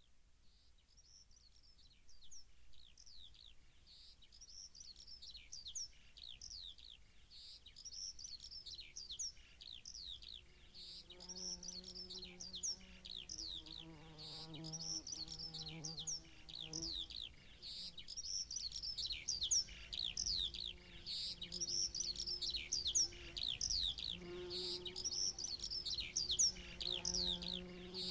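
Birdsong of many rapid, high, falling chirps, fading in from near silence. About eleven seconds in, long held notes from a soft instrumental music track join it.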